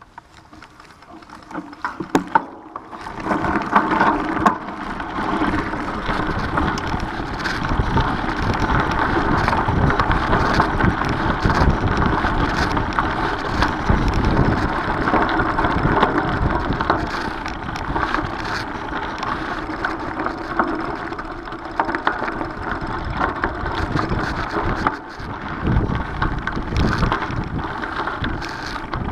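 Mountain bike being ridden on a gravel path, heard from a camera on the rider: steady tyre rumble and crunch with small rattles from the bike, and wind noise on the microphone. A few knocks come in the first few seconds as the ride starts, and the noise rises to a steady level from then on.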